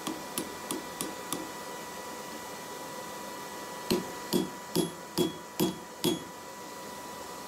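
Hand hammer striking red-hot steel blacksmith's tongs on an anvil, shaping them to finish them. A run of light taps in the first second and a half, then six heavier blows about two and a half a second, each with a short metallic ring.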